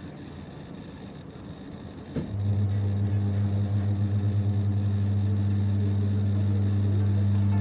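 Nordex N27 wind turbine: a low, noisy hiss, then about two seconds in a click and a loud, steady, low electrical hum that wavers at first and then holds. This is typical of the turbine's generator cutting in to the grid during a restart attempt.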